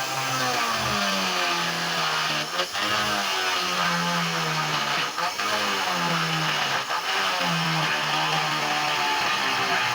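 Background music with a plucked guitar melody stepping from note to note, with a few short clicks.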